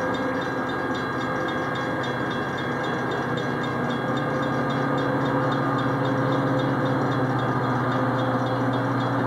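Metra diesel commuter train passing, its locomotive's engine running with a steady hum that grows louder about five seconds in as it comes closer. A light, rapid ticking runs over it.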